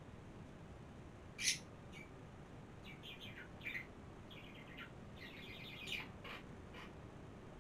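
A bird chirping: one loud chirp about a second and a half in, then several quick runs of short high notes.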